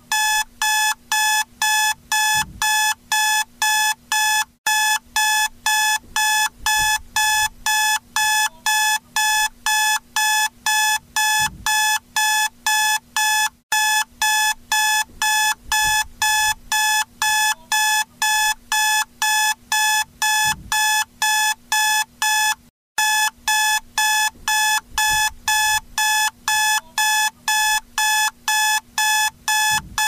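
Electronic wake-up alarm beeping rapidly, about three buzzy beeps a second, with a short break roughly every nine seconds as the pattern repeats.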